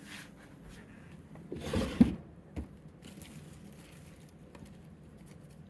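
Brief handling noise: a short scrape ending in a sharp knock about two seconds in, then a small click, over quiet room background.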